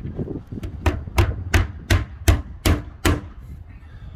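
Hammer driving a nail through a timber capping strip into a wooden shed's wall: seven quick strikes about a third of a second apart.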